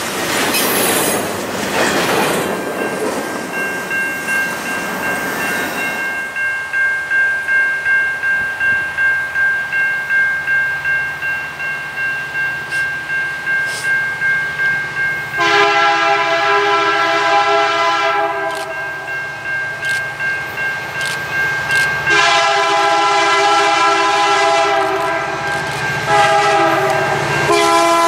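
Wheels of a passing freight train rumbling for the first few seconds, then a grade-crossing bell ringing steadily. About halfway through, an approaching Canadian National freight locomotive's multi-chime air horn sounds loud blasts for the crossing: a long blast, a pause, then another long and a shorter one, with a further blast beginning near the end.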